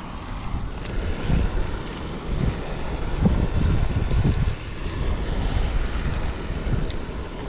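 Wind buffeting the microphone, a gusty low rumble that rises and falls.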